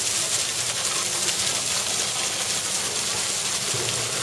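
Steady hiss and splatter of a strong hose jet of water spraying onto an Asian elephant's trunk.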